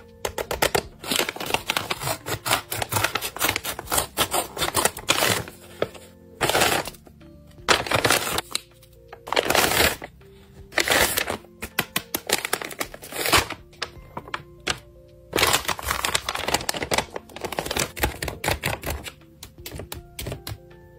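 Paper packaging crinkling and rustling as crumpled paper blind-bag packets are handled and pulled out. There are many quick crackles and several longer rustles, over soft background music.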